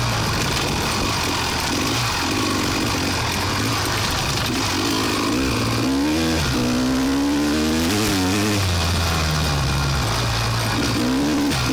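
Off-road vehicle engine running and revving up and down, its pitch rising and falling, most clearly from about six to eight and a half seconds in and again near the end. A steady hiss lies over it.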